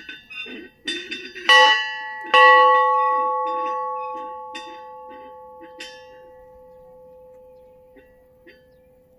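Small antique bronze bell from the Privalov brothers' foundry, rung by its original clapper. Several light taps come first, then two full strikes about a second apart, the second the loudest. It rings on in a long hum of several steady tones that slowly fades away.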